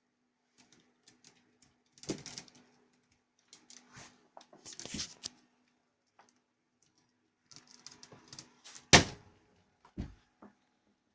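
Kittens clawing and scrabbling at a window insect screen, rattling it in irregular bursts, with a sharp knock against the frame about nine seconds in and a lighter one a second later.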